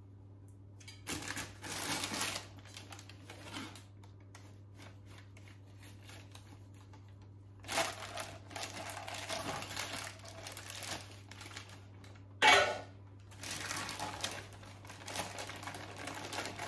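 Baking parchment rustling and crinkling while a knife cuts through a sheet of rolled marzipan and the marzipan is peeled off the paper, in short spells of scraping and rustling. A single sharp knock stands out about twelve seconds in, the loudest sound, over a steady low hum.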